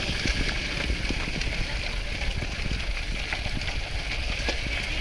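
Four-wheel-drive vehicle driving over a rough gravel mountain track: a steady low rumble under a hiss of tyre and wind noise, with scattered clicks and knocks.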